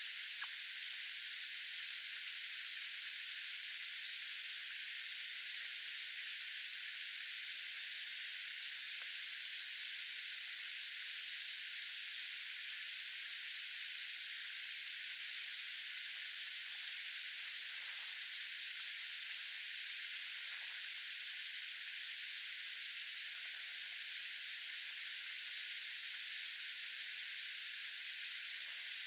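Steady, even high hiss that does not change, with a faint low hum under it.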